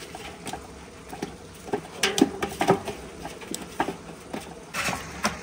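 Freshly caught live carp flapping in a wire landing net and a metal barrel: a run of irregular slaps and knocks, thickest about two seconds in and again near the end.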